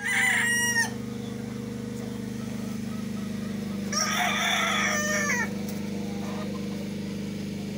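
Gamefowl roosters crowing: one crow cut short at the very start, then a full crow lasting over a second about four seconds in, over a steady low hum.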